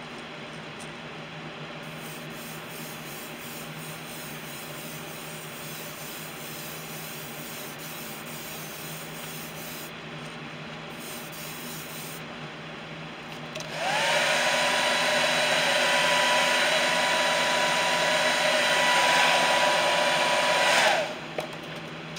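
Handheld blow dryer switched on about two-thirds of the way in: its motor whine rises as it spins up, then it runs steadily with a loud rush of air for about seven seconds and switches off. It is heat-setting freshly airbrushed paint on a lure. Before that there is only a low, steady background hum.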